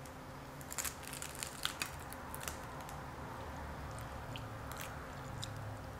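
Close-miked eating of fried mojarra fish: a burst of sharp, crackling crunches from about one to two and a half seconds in, then softer chewing with a few stray clicks. The fish is tough and dried out.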